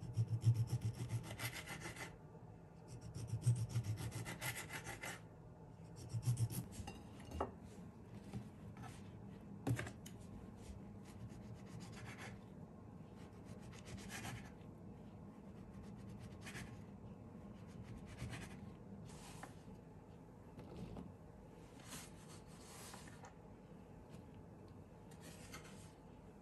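Rubbing and scraping: two longer strokes of about two seconds each in the first five seconds, then scattered light clicks and short scrapes.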